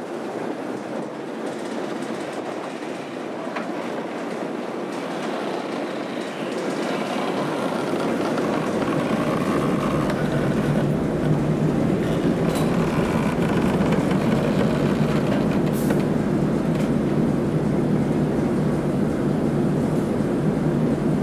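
BR Standard Class 4MT steam locomotive 76079 rolling slowly over depot track, its wheels creaking and clicking on the rails. The sound grows louder partway through as the engine comes nearer, then holds steady.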